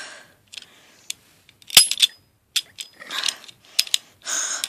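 An unloaded gun's mechanism being worked by hand, clicking empty: several sharp mechanical clicks with short scraping, rattling slides between them.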